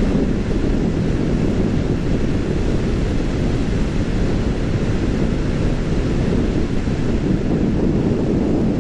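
Steady wind rush over the microphone of a motorcycle riding at speed, with the bike running underneath.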